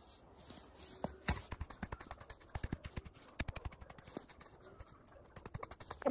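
Small hand hoe chopping and scraping through grass and weeds in the soil: a rapid, irregular run of sharp knocks and crackles, densest in the middle.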